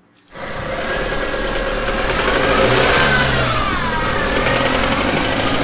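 A vehicle engine running with a rising and falling whine near the middle, starting suddenly: an engine sound effect.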